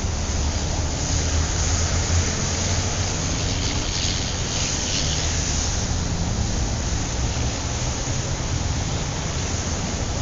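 City street traffic ambience: a steady low rumble of engines and tyre noise, with the hiss of a passing vehicle swelling briefly near the middle.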